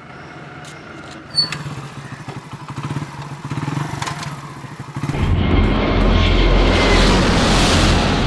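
A motorcycle engine running quietly, then about five seconds in the loud roar of a jet airliner with a deep rumble takes over.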